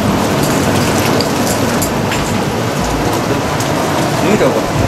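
Jet foot bath's underwater jets churning the water, a steady rushing and bubbling.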